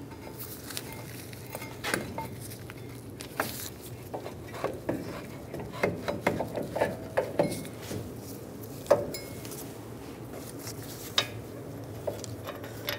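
Front brake caliper and bracket being slid over the brake rotor and worked into position by hand: light metal clinks and scrapes, scattered through, busiest in the middle, with a few sharper knocks.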